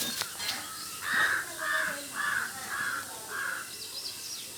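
An animal calling five times in a row, about two calls a second, with the calls evenly spaced and alike.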